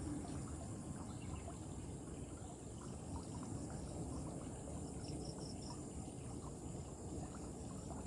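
Outdoor ambience: a steady high-pitched insect drone over low rumbling noise, with a short run of four quick chirps about five seconds in.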